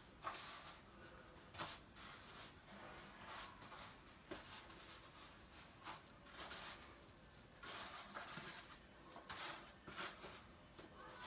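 Faint, scattered soft rustles and taps, about eight or nine over the stretch: a whiting fillet being dredged and turned in a cornmeal-and-flour coating.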